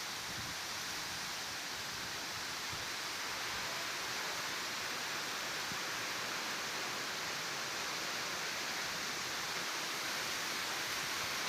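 Strong wind blowing through trees, a steady rushing hiss of leaves that rises slightly.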